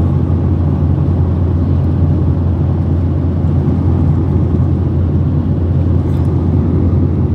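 Airliner cabin noise in cruise flight: the steady low drone of the jet engines and the rush of airflow, unchanging throughout.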